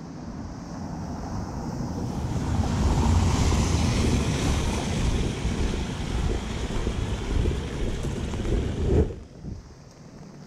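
Wind buffeting the camera microphone: a loud, deep rumble with hiss that builds over the first few seconds and cuts off suddenly near the end.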